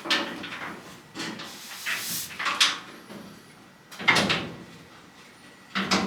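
Steel truck fender being shifted and fitted against the body: a series of metal clunks and scrapes, the loudest knock about four seconds in.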